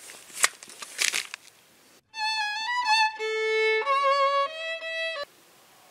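A few seconds of rustling and handling noise against bedding, then a short solo violin phrase of several notes with vibrato, about three seconds long, that cuts off suddenly.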